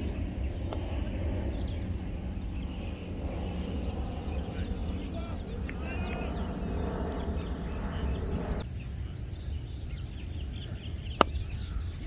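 Outdoor ambience with a heavy low rumble and birds calling faintly in the background. A steady drone cuts off suddenly past the middle, and one sharp crack sounds near the end.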